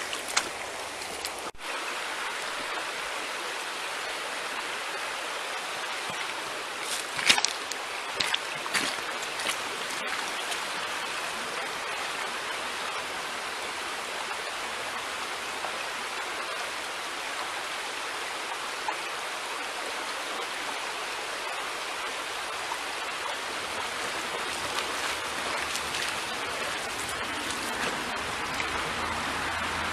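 Shallow stream flowing over stones: a steady rush of water. A few short clicks and knocks sound about seven to ten seconds in.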